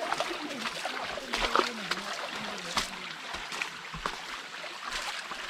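Waterfall water rushing steadily, with a few sharp splashes about a second and a half and nearly three seconds in, and people's voices low in the background.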